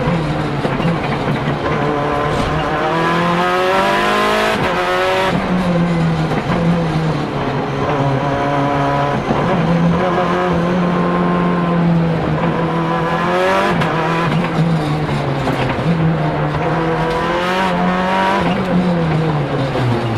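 The 500 hp 2.0-litre turbocharged four-cylinder of a Lancia Delta HF Integrale EVO Proto, heard from inside the cabin at race pace. The revs climb hard several times and drop back sharply with quick sequential-gearbox shifts, then fall away near the end as the car slows.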